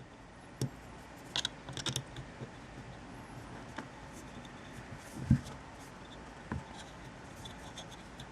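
Faint metallic clicks and scratches of an Allen wrench backing the rear top screw out of a Browning Buck Mark pistol's frame, with a dull knock about five seconds in.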